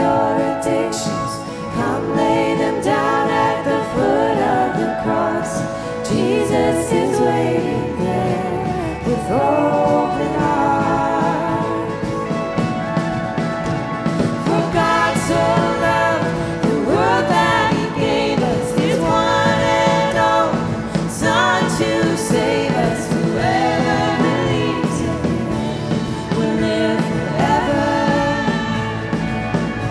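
Live worship band playing a contemporary worship song: women singing the lead and harmonies over keyboard, drums, acoustic guitar and bass guitar.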